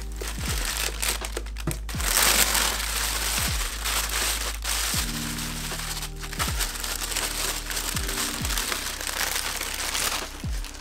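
Phone packaging crinkling and rustling as it is handled and opened, loudest about two to three seconds in, over background music with a deep, repeating bass beat.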